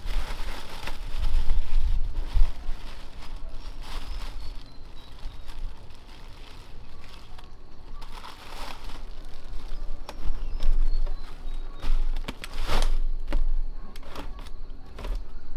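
Thin plastic bag rustling and crinkling in irregular bursts as it is handled, with scattered sharp clicks; the loudest burst comes about three quarters of the way through.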